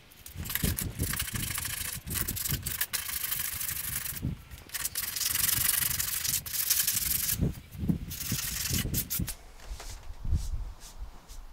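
Hand sanding body filler on a car's rear wheel arch with 150-grit sandpaper: runs of quick back-and-forth strokes with a brief pause partway, smoothing the filler over welding repairs. The sanding stops near the end, leaving a few light taps.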